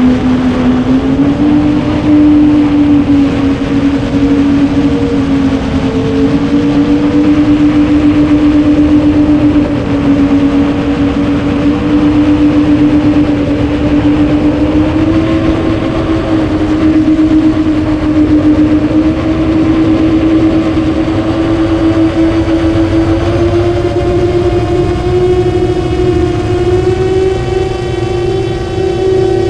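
Motors and propellers of a 9-inch FPV quadcopter running in flight, a loud steady hum whose pitch creeps upward in a few small steps.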